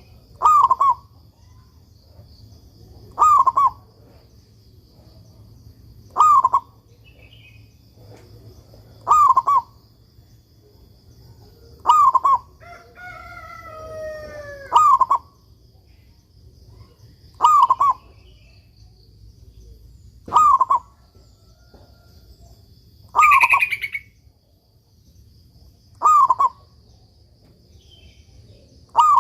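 Zebra dove (perkutut) singing over and over, a short cooing phrase about every three seconds. Midway a slower, falling, wavering call sounds between two phrases. A faint steady high whine runs underneath.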